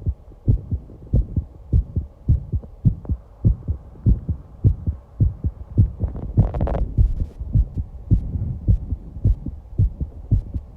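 Human heartbeat picked up close, a steady, fast lub-dub of low thumps at about a hundred beats a minute, raised after exercise. About six seconds in, a brief noise lasting about half a second rises over the beats.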